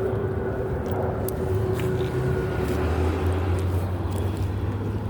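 Motor vehicle engine running steadily, a low rumble, with a faint hum over it that fades out about three and a half seconds in.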